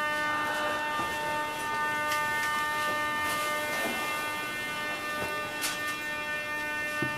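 Moscow Metro 81-717.5/714.5 train standing at a platform: a steady electrical whine made of several pitched tones stacked together, with a few faint clicks.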